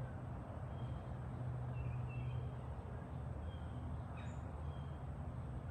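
Outdoor background: a steady low hum, with faint short bird chirps now and then.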